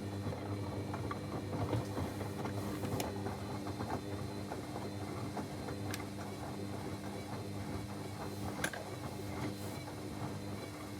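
Techwood WB 91042I washing machine's drum motor running with a steady hum, under a crackling rattle, with two sharp clicks in the second half.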